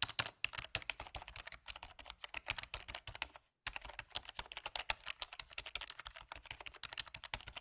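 Rapid keyboard typing clicks, a typing sound effect that keeps time with text being typed out on screen, with one short pause about three and a half seconds in.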